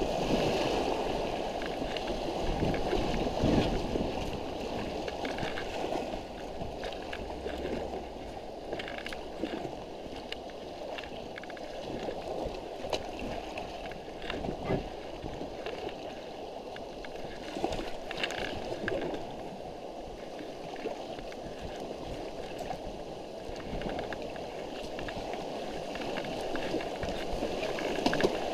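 Shallow stream water rushing and gurgling around an inflatable packraft as it is paddled downstream, with scattered splashes and knocks from the double-bladed paddle.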